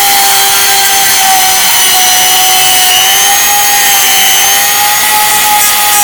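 Small power tool running steadily on the lighter's metal: a motor whine, its pitch wavering slightly, over a rough grinding or sanding hiss.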